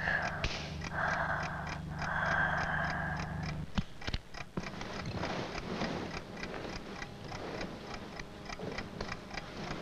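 Clock ticking evenly, about four ticks a second. Over the first three seconds or so a low hum and two stretches of hiss run beneath it, then stop with a couple of clicks.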